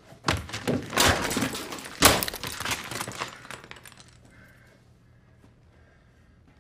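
A computer keyboard slammed repeatedly against an office desk, a rapid series of loud cracking, breaking impacts. The two hardest blows land about a second apart, and the smashing dies away after about three seconds.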